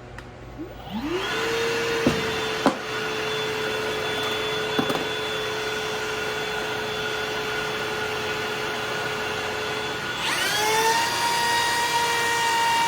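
A router and the shop vacuum on its dust-collection attachment starting up one after the other. One motor winds up to a steady whine about a second in, with a few sharp clicks soon after, and a second, higher whine winds up about ten seconds in; both then run together.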